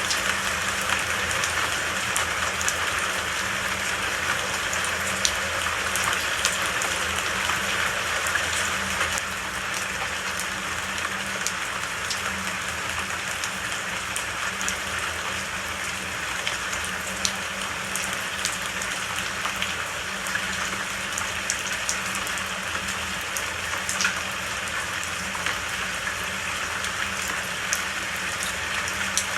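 Steady rain falling, an even hiss with scattered sharp drop ticks; it eases slightly about nine seconds in.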